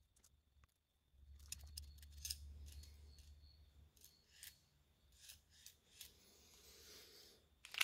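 Faint clicks and scraping of small hand tool work on a painted polyurethane resin stick bait, with a soft hiss near the end.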